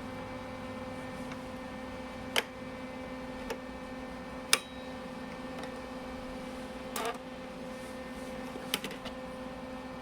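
MIG welder's wire-feed drive motor running steadily, pushing welding wire through the gun's liner, with a few sharp clicks along the way.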